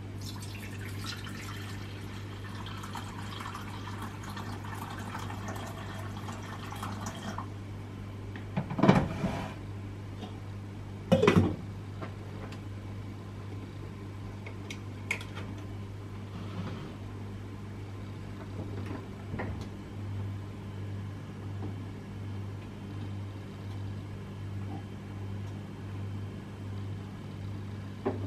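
Water pouring from an electric kettle into a small electric cooking pot for about seven seconds, then stopping suddenly. About two seconds later come two loud knocks a couple of seconds apart, and a low steady hum runs underneath throughout.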